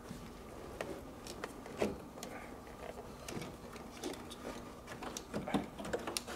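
Scattered light clicks, taps and knocks of hands fumbling blind behind a classic Mini's dashboard gauges, with a couple of louder knocks about two seconds in and near the end.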